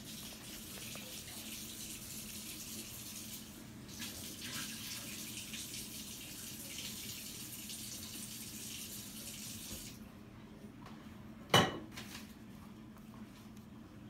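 A steady hiss that cuts off suddenly about ten seconds in, then a single sharp click from the stainless steel scissor-style cigar cutter being handled.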